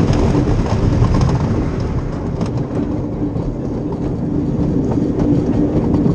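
Great Coasters International wooden roller coaster train rolling along its wooden track: a steady rumble with rattling clatter from the wheels and cars.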